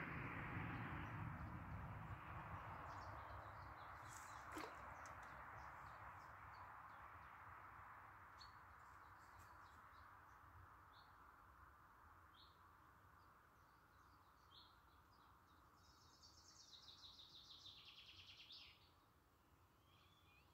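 Faint outdoor ambience: a soft hiss fading away, with scattered short bird chirps and a single click about four and a half seconds in. Near the end a songbird gives a fast trill of high notes that falls in pitch and stops abruptly.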